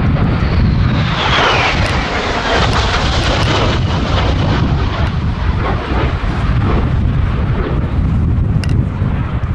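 Harrier II jet's Rolls-Royce Pegasus vectored-thrust turbofan in flight: loud, steady jet noise, with a whine that falls in pitch over the first couple of seconds as the aircraft passes.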